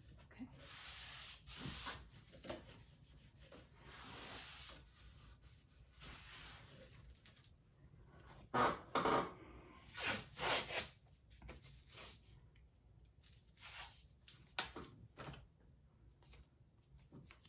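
FrogTape painter's tape being rubbed down by hand onto a stretched canvas and pulled off its roll: a run of short scraping rubs and rasps, loudest in a cluster of sharp strips a little past halfway, with one sharp click later on.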